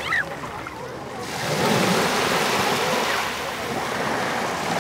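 Small surf washing up on a sandy beach, a steady rush of water that swells about a second in.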